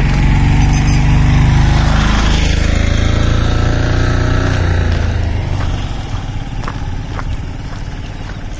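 Motorcycle engine passing close by, its pitch dropping as it goes past and then fading away over a few seconds. In the second half come a few light clicks of goat hooves on the asphalt.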